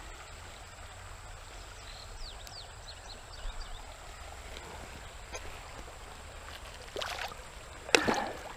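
A smallmouth bass splashing into shallow river water as it is released by hand, two splashes about a second apart near the end, the second the louder.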